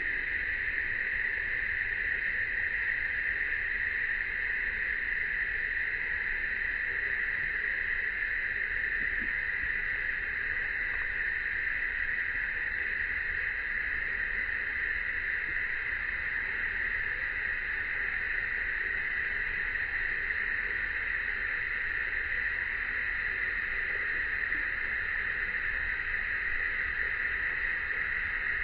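Steady, unbroken drone of a summer cicada chorus, a dense hiss held at one pitch, with a faint low rumble underneath.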